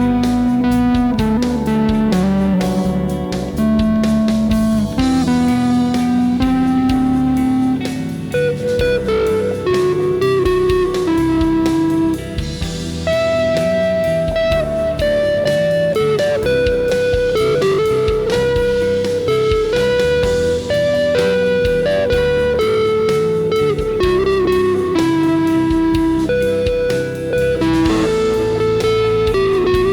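Electric guitar improvising a melody of sustained notes through effects pedals, over an ambient rock backing track with drums and bass.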